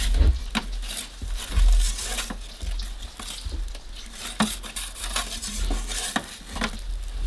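Metal pizza turning peel scraping and clinking against the stone floor of a portable pizza oven as the pizza is turned, over the crackle of the fire. A couple of low rumbles in the first two seconds.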